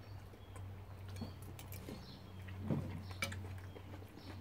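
Quiet table sounds of eating: scattered light clicks of chopsticks and a spoon against ceramic bowls, with a short low sound near the middle, over a steady low hum.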